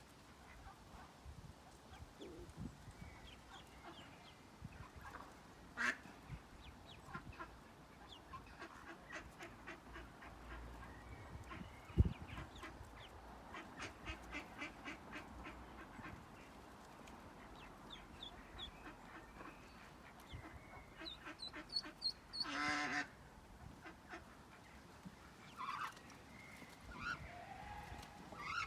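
Ducklings peeping in quick runs of short, high calls, with a mother duck giving a louder call about three-quarters of the way through. A single sharp knock about 12 seconds in.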